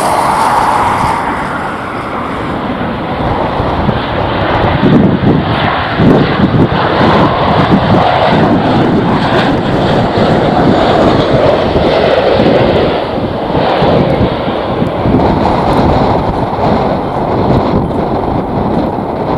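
Airliner jet engines rumbling as an aircraft passes close by, with a whine that fades in the first couple of seconds, while gusty wind buffets the microphone.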